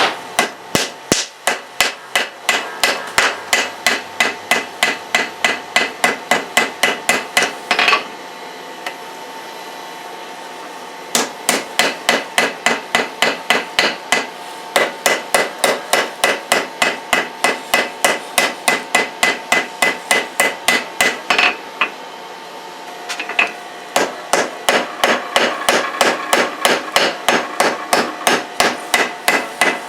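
Hammer blows on hot leaf-spring steel over a wetted anvil, a fast even run of sharp ringing strikes at about two or three a second, in three runs with short breaks: cleaning-up blows to blow off the forge scale.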